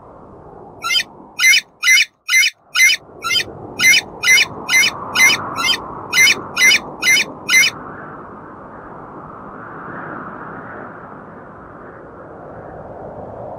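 An animal-like voice making a quick run of about sixteen short, high calls, a little over two a second, which stop a little past halfway. A steady low rushing background noise continues throughout.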